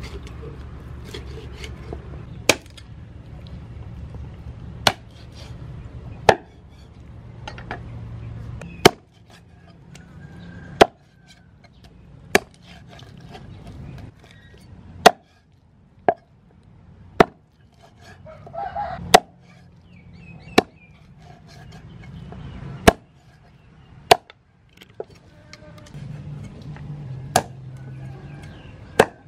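A heavy cleaver chopping a raw chicken into pieces on a thick wooden chopping block: about fifteen sharp single chops, spaced irregularly one to two and a half seconds apart.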